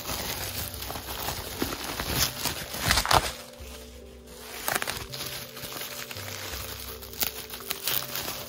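Plastic bubble wrap crinkling as it is handled and unwrapped, densest in the first three seconds with a few more crackles later. Soft background music with held notes plays under it.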